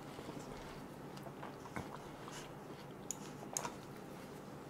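Soft close-up chewing of a mouthful of watermelon, with a few faint, scattered wet clicks.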